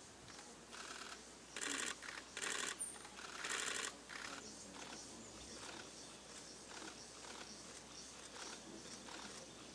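Press cameras' shutters firing in rapid bursts: four short bursts in the first four seconds, then scattered single clicks. A brief high bird chirp comes about three seconds in.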